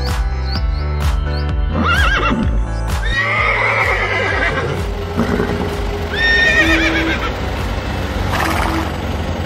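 Several horse whinnies in a row: a short one about two seconds in, a long one from about three seconds, and another near the middle. They play over background music.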